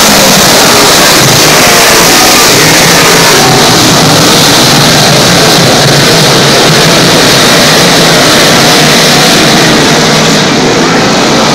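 A field of dirt modified race cars racing flat out around a dirt oval, their V8 engines running together at full throttle. Very loud and unbroken, easing slightly near the end.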